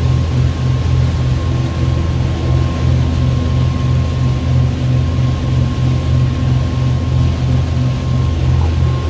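1982 Bertram's engines running steadily with the boat underway: a loud, low drone with an even throb a few times a second.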